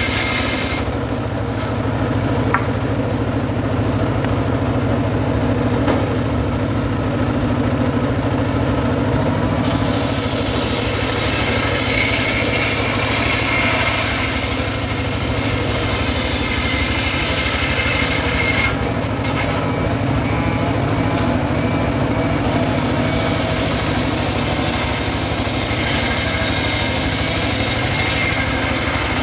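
Engine-driven homemade table circular saw running steadily while a sengon log is pushed lengthwise through the blade, the engine drone under the noise of the blade ripping the wood. The high cutting noise eases off and comes back a couple of times as the log is fed.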